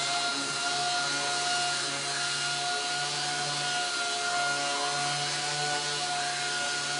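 A 12,000 RPM 6-inch random orbital sander running steadily with a high whine, its foam-backed 150-grit disc scuff-sanding a carbon fiber race wing.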